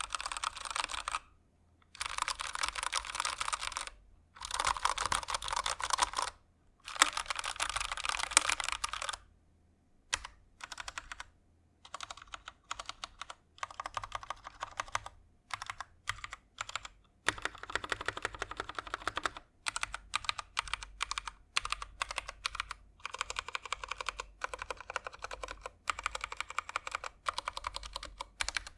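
Keychron K6 aluminum 65% mechanical keyboard with stock Keychron Brown switches being typed on: fast runs of keystrokes in bursts of one to two seconds at first, then slower separate key presses, then steady continuous typing.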